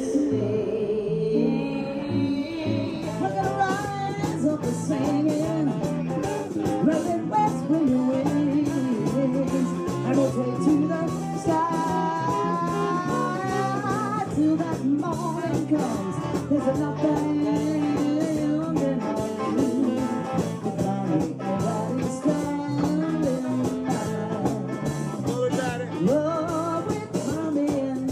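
Band music with guitar and a steady beat; the beat comes in about three seconds in.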